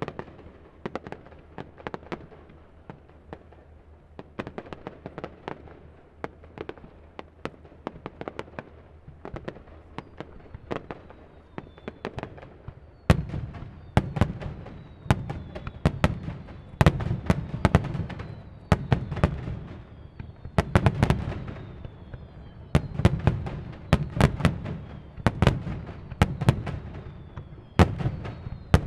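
Aerial fireworks display: a rapid series of bangs and pops that turns louder and heavier, with deep booms, a little under halfway through. Faint short falling whistles run among the bangs in the latter part.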